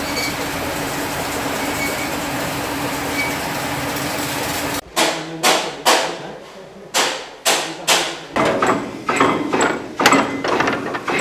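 Coconut-husk processing machine running with a steady, noisy hum, which cuts off abruptly about five seconds in. A series of sharp knocks follows, about two a second at first, then faster and more irregular.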